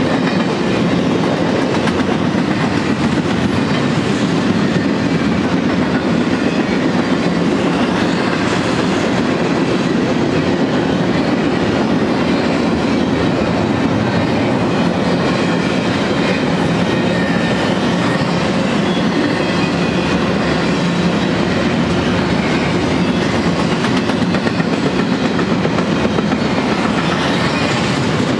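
Double-stack intermodal train's loaded well cars rolling past: a steady, loud noise of steel wheels on rail that does not let up.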